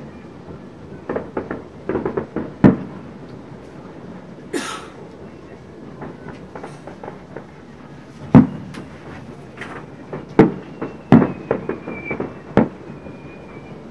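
Fireworks display: shells bursting with sharp bangs, a cluster in the first three seconds and another run from about eight seconds on, with a brief hiss near the middle.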